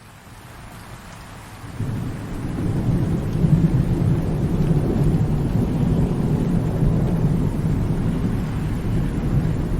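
Rain falling and fading in, then a long low roll of thunder that builds about two seconds in and keeps rumbling.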